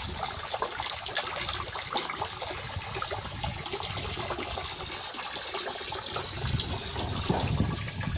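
A thin stream of water from a hose running into the shallow water of a small concrete tank, a steady trickling splash as the tank is filled.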